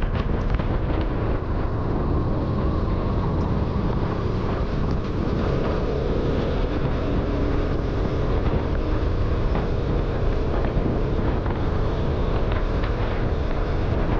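Motorcycle running at speed on the road, its engine hum mixed with heavy wind buffeting on the microphone.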